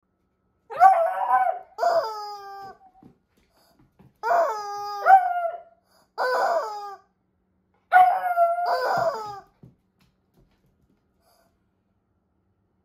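Rubber screaming chicken toy squeezed over and over: about seven loud screams, mostly in quick pairs. Each holds a steady pitch with a hiss of air over it, then drops off at the end.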